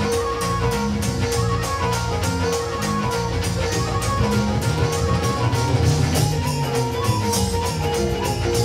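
Live Punjabi Sufi band playing an instrumental passage with no singing: an ornamented melody over a held drone and a steady, quick percussion beat.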